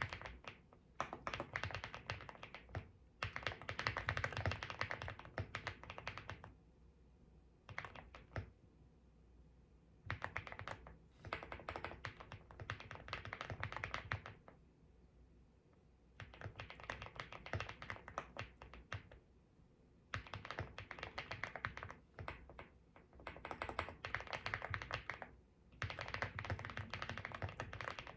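Fast typing on a mechanical keyboard, in runs of a few seconds broken by short pauses.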